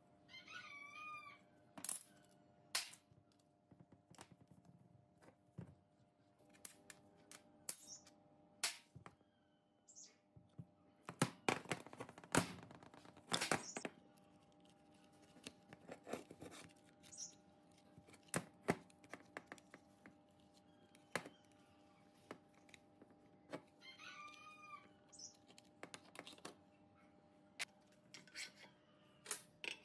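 Scattered metal clinks, taps and knocks of hand tools working on the housing of a rusty pneumatic impact wrench against a steel checker-plate bench, with a cluster of louder knocks about 11 to 14 seconds in.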